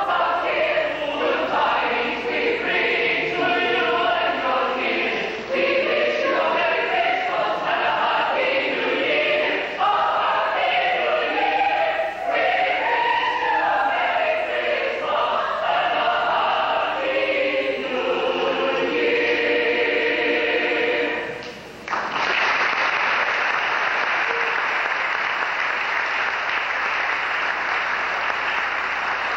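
Choir singing, the song ending about 21 seconds in, followed by applause through the rest.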